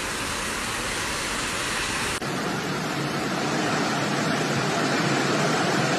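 Steady rushing noise of heavy rain and floodwater. About two seconds in it changes abruptly to a fuller, deeper rush of fast-flowing floodwater.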